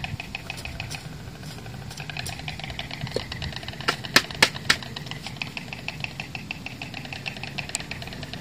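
Hand gardening: three or four sharp clicks close together about four seconds in, a small hand trowel knocking against hard material in the bed. Underneath, an engine runs steadily with a fast, even ticking.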